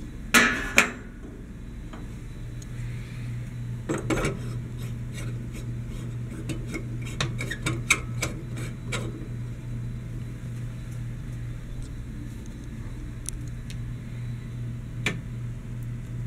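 An LED light bulb being handled and screwed into a recessed ceiling light socket. There are sharp clicks and knocks about half a second in and again around four seconds, then a run of small clicks and scrapes as the bulb is twisted in, and one last click near the end. A steady low hum runs underneath.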